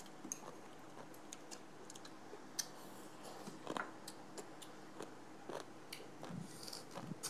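Chewing and biting of spicy green papaya salad, with scattered sharp clicks of chopsticks against plates at irregular intervals.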